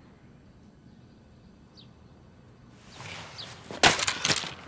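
Quiet outdoor hush with a couple of faint short bird chirps, then about three seconds in a hurried scuffle of rustling and clattering with two loud sharp knocks near the end: a golf bag and folding seat being grabbed and knocked about.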